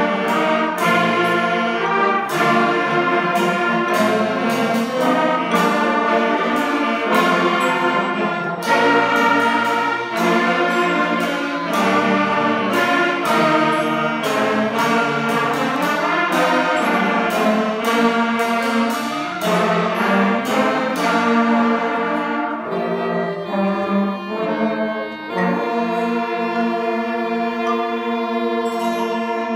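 Orchestral music with brass: sharp accents on a steady beat over full chords, easing after about twenty seconds into held chords.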